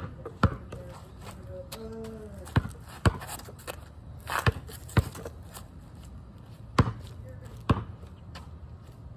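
Basketball bouncing on asphalt during shooting practice: about nine sharp thuds, irregularly spaced.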